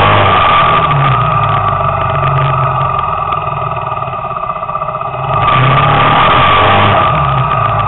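Motor scooter riding along, its engine running with road and wind noise, picked up close by a camera mounted under the scooter. The sound drops back for a few seconds in the middle and rises again sharply about five and a half seconds in.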